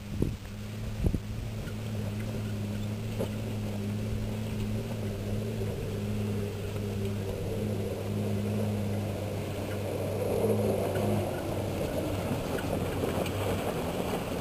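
A 4x4 SUV's engine running steadily under load as it climbs a loose, rocky dirt hill, getting a little louder as it comes closer near the end.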